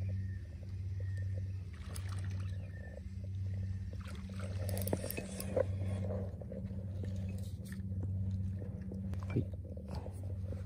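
A low, steady hum that swells and fades about every one and a half seconds, with a few small clicks and knocks around the middle as the caught horse mackerel and tackle are handled.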